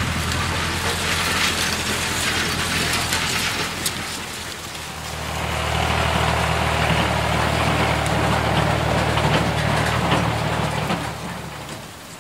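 Heavy farm-machinery engine running with a deep, steady rumble. It dips about four seconds in, swells again, and fades out just before the end.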